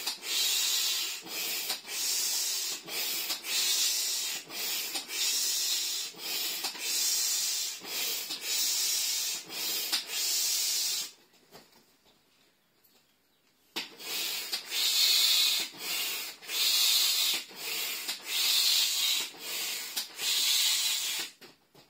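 Manual air pump inflating an inflatable tiger pool toy: rhythmic hissing pump strokes, about three every two seconds, pausing for a couple of seconds about halfway through before starting again.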